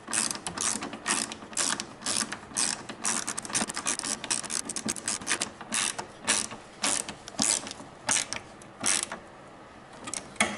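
Socket ratchet driving a 4 mm Allen bit, clicking in quick repeated strokes as a bolt is tightened. The clicking stops about nine seconds in, and a couple of clicks follow near the end.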